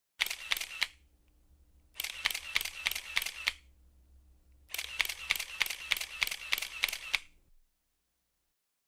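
Camera shutter firing in three rapid bursts of clicks, about three to four a second. The first burst is short and the last is the longest.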